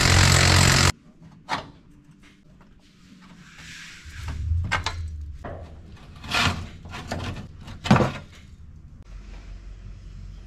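An 18-volt cordless power tool runs for about a second on a fuel-tank strap bolt and cuts off suddenly. Scattered metal knocks and clanks follow as the loosened tank strap and bracket are handled, with a faint steady low hum in the last second or so.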